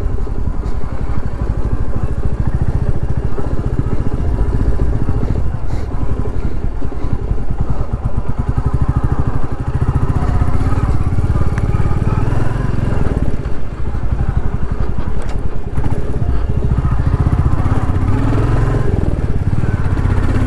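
Royal Enfield Classic 350's single-cylinder engine running under way as the bike is ridden over a rough dirt track, the exhaust pulsing in a fast, even beat.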